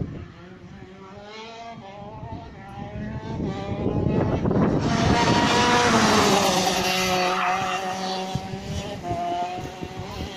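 Racing kart engine passing close by at speed. It grows louder as the kart approaches and is loudest about six seconds in, then its pitch drops and it fades as the kart drives away.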